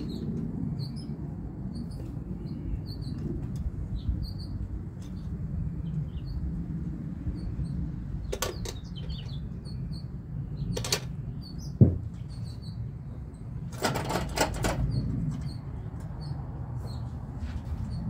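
Engine fitted with a four-barrel carburettor running with a low, uneven rumble; the owner goes on to say it doesn't sound good and suspects the spark plug wiring. A few sharp clicks and a short knock come through around the middle, and birds chirp faintly in the background.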